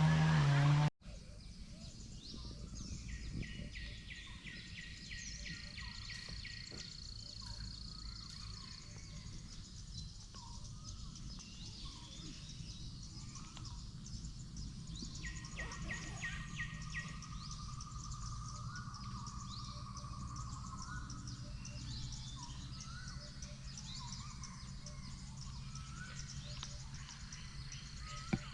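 Forest ambience: birds calling and chirping, with pulsed insect-like trills and long whistled notes, over a steady low rumble. For about the first second a louder pitched sound plays, which cuts off abruptly.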